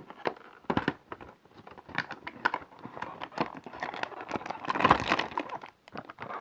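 Fidget spinner packaging being handled and rummaged through: irregular crinkling and rustling with small clicks, busiest around five seconds in.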